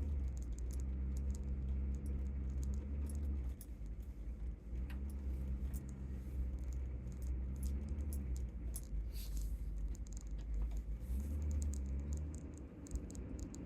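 Inside the cab of a Chevy/GMC 6.5 turbo diesel truck on the road: a steady low engine and road drone, over a light metallic jingling rattle.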